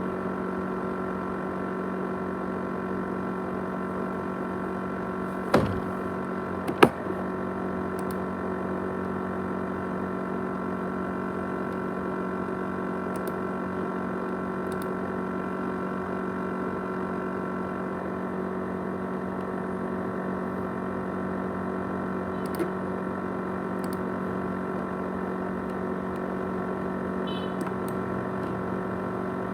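A 500 GB USB hard drive on an ASUS X543UA laptop running with a steady hum made of several fixed tones, the noise the title likens to a jet engine. Two sharp clicks come about five and a half and seven seconds in.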